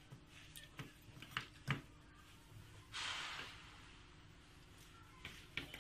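Faint handling sounds: a few light clicks and taps, with a short breathy hiss about three seconds in.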